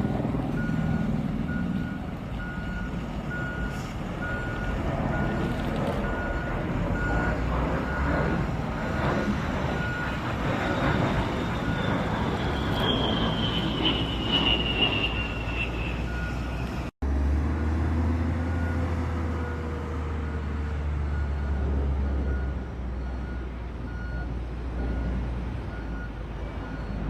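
Engine noise with a short high beep repeating steadily throughout. A high whine glides down in pitch midway, and after an abrupt cut a deep low rumble takes over.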